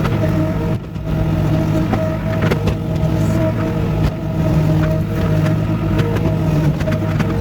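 Vehicle engine running steadily under load, with scattered clanks and rattles over it.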